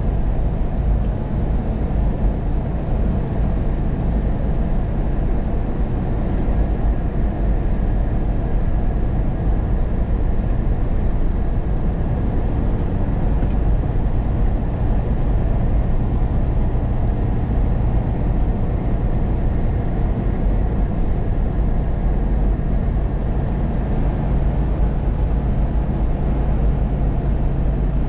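Steady engine and road noise inside a truck's cab while driving, with a deep, even rumble.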